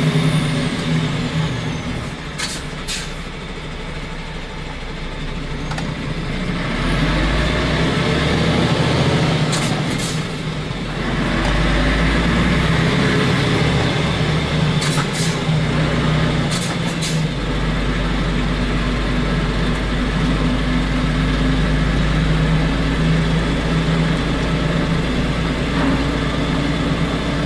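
Semi-truck diesel engine heard from inside the cab through an open roof hatch, pulling a heavy load of almost 30 tonnes. The engine note changes several times as the truck works through gear changes, then holds steady over the last ten seconds. A few short, sharp clicks come through in between.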